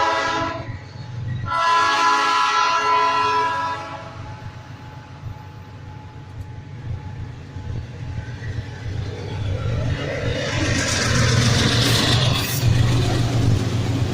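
Train horn blowing two chord blasts, a short one at the start and a longer one about two seconds in, over the low rumble of the locomotive. Toward the end a broad rushing noise builds as the train passes close.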